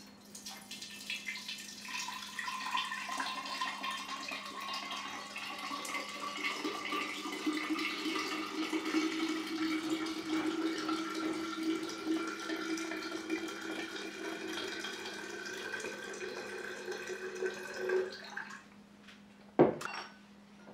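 Fruit kefir poured through a jar's strainer lid into a large empty glass jar: a steady trickle of liquid whose pitch rises slowly as the jar fills. The pour stops near the end, followed by a brief knock.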